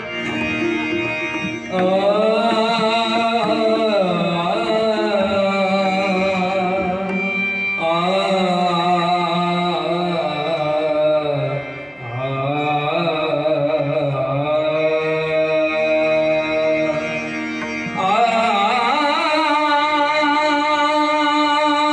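Devotional bhajan singing: a solo voice sings a melody in long phrases over instrumental and drum accompaniment, with a fresh phrase entering every few seconds.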